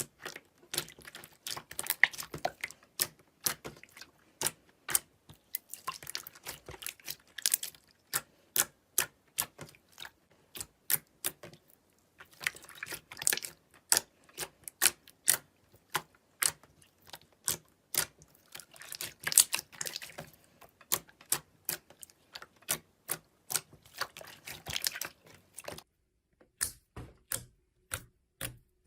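Slime being squeezed and poked by hand, making a run of sharp clicks and pops from air pockets, with denser crackling stretches every few seconds.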